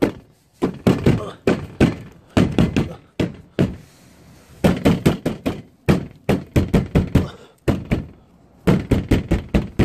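Rapid, repeated knocks and rattles from a hand banging and shaking a Tesla Model 3's front body panel, about four or five knocks a second with two short pauses, jarring loose dirt trapped inside.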